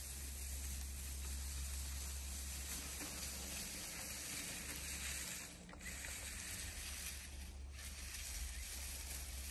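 Steady hissing rustle with a low rumble underneath as a 1:10 scale RC crawler drives through thick grass and brush; the hiss dips briefly twice in the second half.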